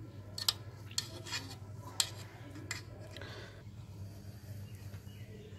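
Metal spoon clinking and scraping against the side of an aluminium pot as it loosens a set layer of malai (thick cream) from the edges of chilled milk: a few sharp clicks in the first two and a half seconds, then a soft scrape.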